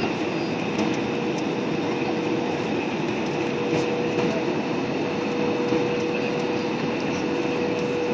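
Steady airliner cabin noise from the engines and rushing air, with a constant humming tone running through it, heard from inside the cabin.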